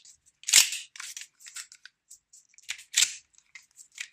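Clacks and small clicks from a Swiss Arms 1911 TRS CO2 BB pistol being worked by hand to free a magazine that won't release. The mechanism is jammed. The loudest clack comes about half a second in, and another sharp one about three seconds in.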